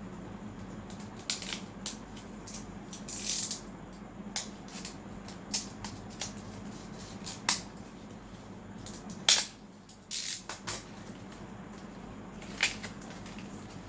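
Hands handling an SSD and small laptop parts: scattered clicks, taps and rustles of plastic and metal, loudest about three seconds in and again around nine to ten seconds, over a faint steady low hum.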